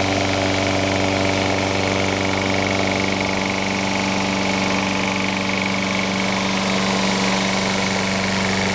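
Sears Craftsman 22-inch walk-behind lawn mower's Briggs & Stratton 650 Series single-cylinder engine running steadily at an even speed, with a new blade fitted.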